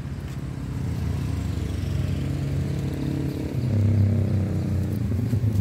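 A motor vehicle engine running steadily, growing louder about two-thirds of the way in.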